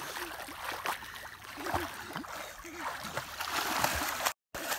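Children splashing and kicking in shallow water, with steady water sloshing and faint children's voices in the background. The sound cuts out briefly near the end.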